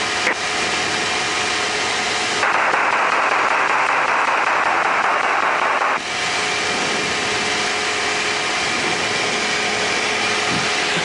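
Tecnam P92 Eaglet light aircraft's engine and propeller in steady cruise, a constant drone filling the cabin. About two and a half seconds in, a burst of hiss comes in over it and cuts off suddenly about three and a half seconds later.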